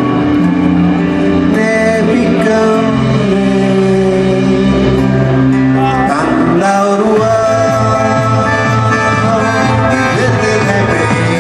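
Live band music: a man singing over acoustic guitar, keyboards and drums.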